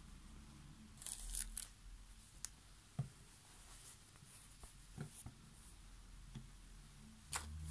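Faint rustling and light brushes of hands handling and turning folded cotton towels, a few short scrapes of cloth scattered through, the sharpest about a second in and near the end.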